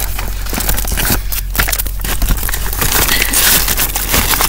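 Handling noise on the camera's microphone: close rustling, scraping and crackling of a hand and sleeve rubbing against the camera and its mount, full of sharp clicks.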